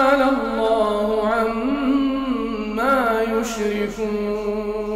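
A man's voice chanting Quranic recitation in a drawn-out melodic style, holding long notes with small ornamental turns in pitch.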